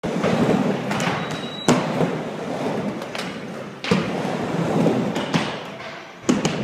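Skateboard wheels rolling on a wooden mini ramp, a steady rumble that rises and falls as the skater pumps from wall to wall. Three louder sharp clacks of the board come about two seconds apart.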